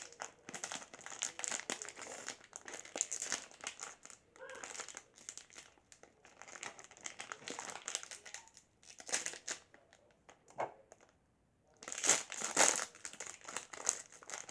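Packaging crinkling and rustling as a surprise-toy packet is handled and opened by hand, in irregular bursts with a brief pause near the end, followed by a louder stretch of crinkling.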